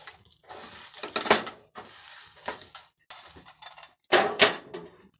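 Hands squishing and kneading raw ground beef in a stainless steel mixing bowl, the metal bowl scraping and knocking against the stovetop burner cover as it is turned, loudest about four seconds in.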